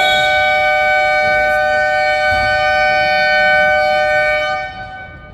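Basketball scoreboard horn sounding one long, steady blast of two pitches together, held for about four and a half seconds before fading out.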